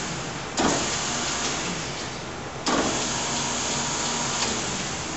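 GMP SG-1000/400 hydraulic surface grinder running, its hydraulic pump and wheel spindle giving a steady hum. A sudden surge of hissing machine noise comes about half a second in and again near three seconds, each fading over about a second.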